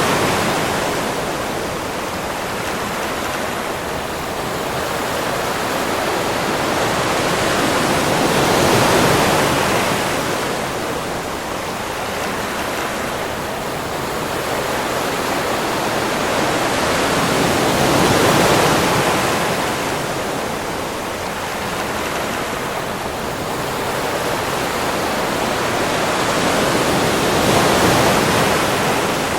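Ocean surf on a sandy beach: waves breaking and washing up, the rush swelling and easing about every nine seconds.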